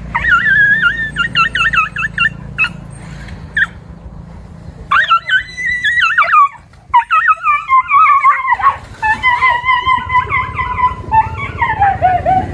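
A dog whining and yelping in high, wavering cries: a quick run of them in the first couple of seconds, then longer rising and falling cries from about five seconds in, the last one sliding down in pitch.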